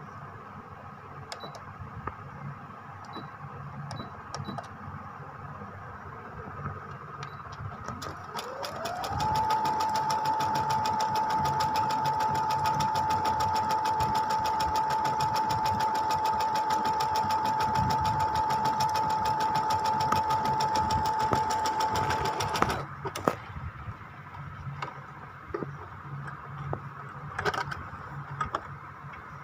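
Brother FS101 computerized sewing machine speeding up about eight seconds in, with a rising whine, then stitching at a steady speed with a fast, even needle clatter while sewing a decorative stitch. It stops abruptly after about fourteen seconds. A few faint ticks come before it starts and after it stops.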